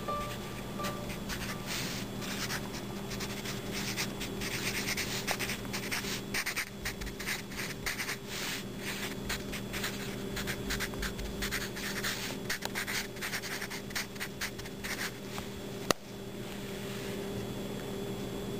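Pencil writing on lined notebook paper: quick scratchy strokes for most of the time, then a single sharp tap near the end. A steady low hum runs underneath.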